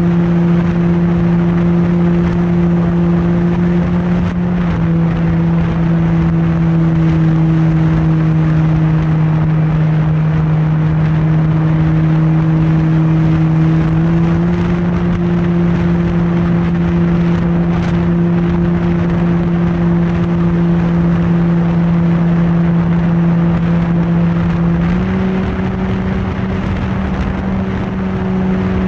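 Radio-controlled PC-21 model plane's motor and propeller droning at a steady pitch over a constant rush of noise; the pitch drops a step about five seconds in, then rises a step twice later as the throttle is changed.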